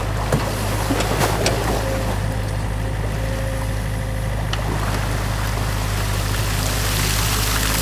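New Holland mini excavator's diesel engine running steadily while its bucket churns and splashes through stream water, with a few sharp knocks in the first couple of seconds. Near the end the splashing swells as the bucket lifts a dripping load of beaver-dam debris out of the water.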